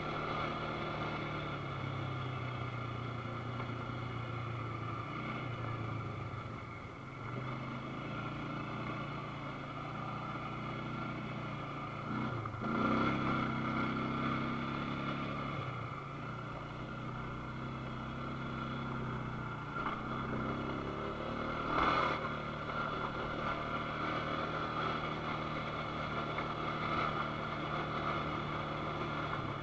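ATV engine running steadily while riding, louder for a couple of seconds about twelve seconds in, with a single sharp knock about twenty-two seconds in.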